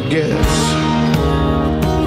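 Music: a song with held bass notes and instrument tones, and drum hits from about a second in.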